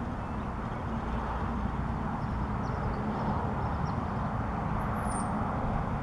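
Steady outdoor background noise with a low rumble, with faint bird chirps and one short, high, falling whistle about five seconds in.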